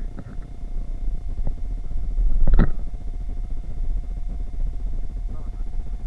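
Wire shopping cart being pushed across a store floor, a steady low rumble and rattle close to the camera, with one louder clunk about two and a half seconds in.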